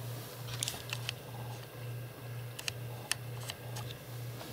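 Handheld ultrasonic dog repeller switched on, giving off a faint low hum that pulses about twice a second, with scattered light clicks. The ultrasonic tone itself is not audible; only these side noises come through.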